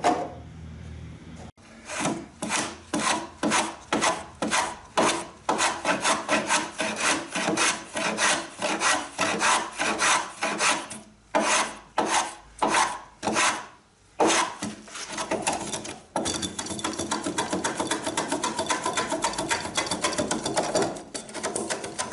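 A hand tool shaving and scraping the strip ends at the stem of a wooden strip-built kayak model hull, fairing the ends before epoxy. It goes in steady back-and-forth strokes about two a second, breaking off a few times, then quicker, lighter strokes near the end.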